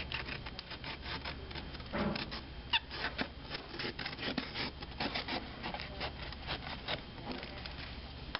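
Irregular rubbing and scraping of paper and book board as a damaged book binding is worked on by hand, in a dense run of short rough strokes.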